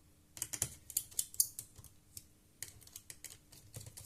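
Irregular small hard clicks and taps from a screwdriver and parts being worked on inside an open laptop, coming in clusters.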